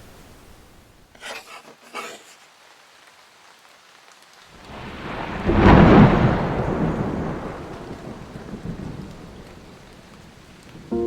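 A thunderclap that builds about four and a half seconds in, peaks, and rolls away slowly over several seconds, over a steady hiss of rain.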